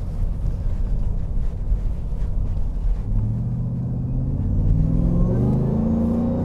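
Supercharged V8 of a 2020 Harley-Davidson F-150 heard from inside the cab: a low exhaust rumble while cruising, then the truck accelerates from about three seconds in and the engine note rises in pitch and grows louder.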